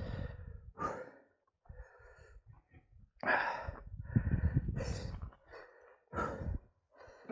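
A mountain biker's breath, heard in irregular noisy bursts of up to a second or two with near-silent pauses between.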